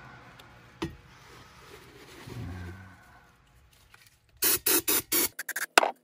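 Short, loud hissing bursts of aerosol brake-parts cleaner sprayed onto a metal hydraulic filter housing: four sprays of about a fifth of a second each, then several quicker, shorter ones. Before them there is faint rubbing and handling with one sharp knock about a second in.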